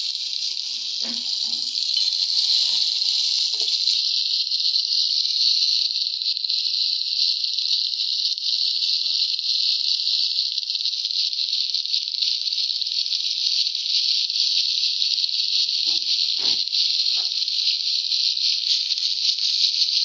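Chicken shashlik skewers sizzling in hot oil in a frying pan, a steady hiss, with a few faint knocks as more skewers are laid in.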